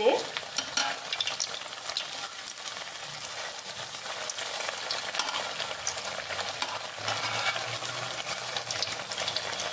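Sabudana vadas deep-frying in hot oil in a steel kadhai: a steady crackling sizzle, with small scraping clicks from a wire-mesh strainer turning them in the oil.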